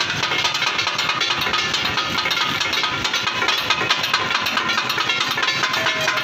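Two flat metal katakat blades hammered rapidly and in turn on a large flat metal griddle to chop meat: a fast, steady metallic clatter.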